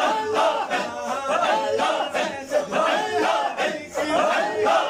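A crowd of men chanting together, many voices overlapping.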